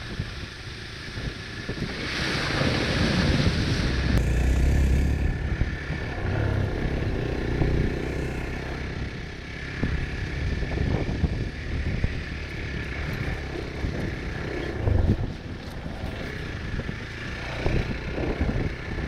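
Hero Xpulse 200's single-cylinder engine running while the motorcycle is ridden over a rough trail, with wind on the microphone and occasional knocks. A hissing rush builds about two seconds in and fades a couple of seconds later.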